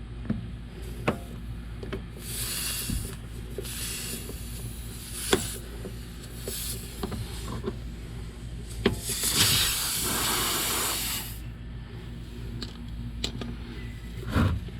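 Bursts of air hissing from a punctured truck tire as a screw is worked out of the tread with pliers, the longest and loudest about nine to eleven seconds in, with small clicks of the metal tool between them.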